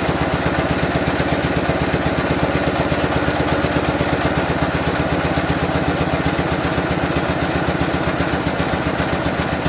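Ural motorcycle's flat-twin engine idling on one cylinder, the other spark plug grounded off, with an even, rapid firing beat while the carburettor's mixture-quality screw is turned to find the highest idle speed.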